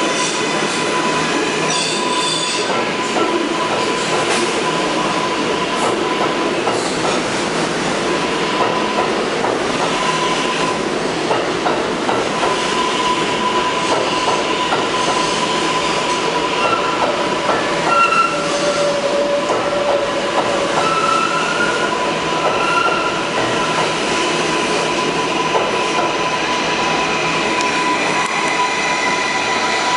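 New York City Subway R142A train with Bombardier MITRAC propulsion pulling out of the station and passing close by: a steady rumble of wheels on rail under a constant whine, with wheel clicks over rail joints. Brief wheel squeals come and go around the middle.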